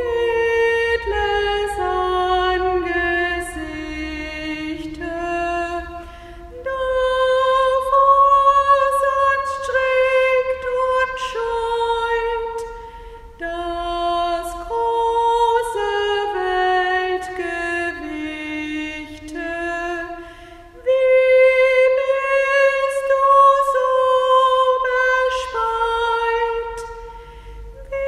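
A woman's solo voice singing a slow hymn melody in long, smooth phrases, pausing briefly for breath about every seven seconds.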